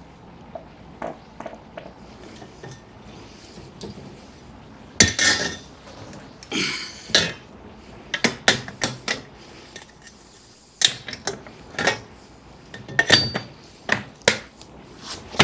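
Irregular sheet-metal clanks, clicks and rattles from the air handler's cabinet and filter being handled, in scattered clusters with short quiet gaps.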